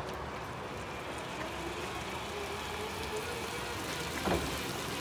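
Mitsubishi FBP30K electric forklift driving on wet asphalt: a steady hiss of tyres on the wet surface with a faint wavering motor whine, and a short knock about four seconds in.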